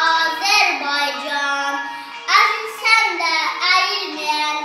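A young boy reciting a poem aloud in a drawn-out, sing-song voice, holding some syllables long.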